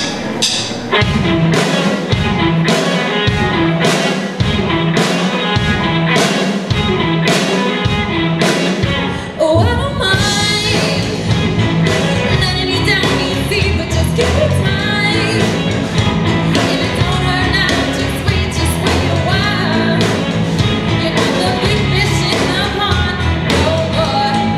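Live rock band playing a song with singers. It opens with a steady beat of short hits and no bass, then the full band with bass comes in about ten seconds in.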